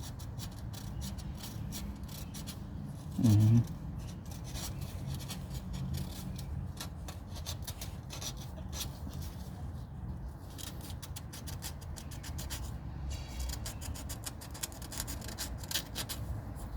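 Sandpaper rubbing lightly by hand over rust on the metal near the oil filter mount, in repeated short scratchy strokes. A brief loud low thump a little over three seconds in.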